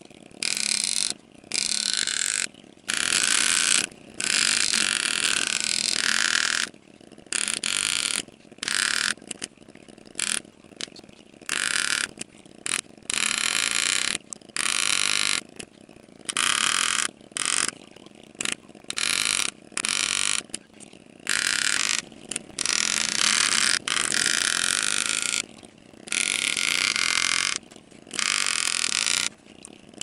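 Engraving graver cutting full-relief scrollwork into a titanium knife handle, running in short, abruptly starting and stopping buzzing bursts of a fraction of a second to about two seconds each, with a low steady hum underneath.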